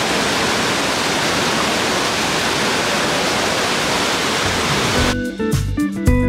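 A large waterfall pouring steadily. About five seconds in, it cuts off abruptly and background music takes over, with plucked notes and a low beat.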